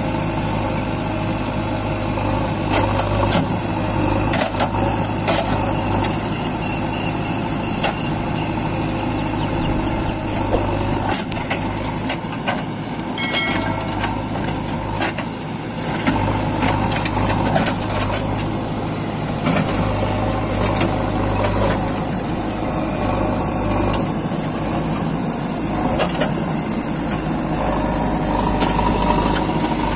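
JCB 3DX backhoe loader's diesel engine running steadily while the backhoe arm digs soil, with scattered short knocks and clanks from the bucket and arm.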